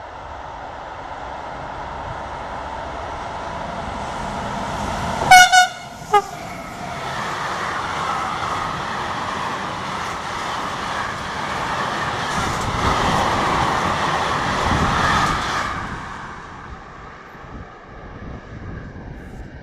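Freight train approaching and giving three short horn blasts about five seconds in, then its wagons rolling past close by for about ten seconds before the sound fades away.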